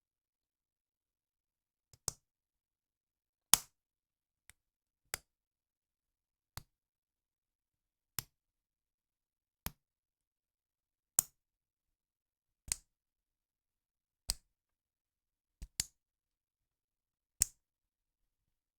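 Plastic Lego bricks snapping into place, one sharp click about every second and a half, with dead silence between the clicks.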